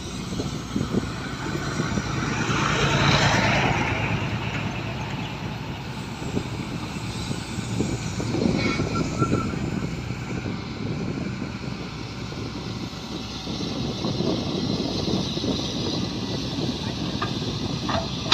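Shantui hydraulic excavator's diesel engine running steadily while digging, with a louder swell of noise about three seconds in.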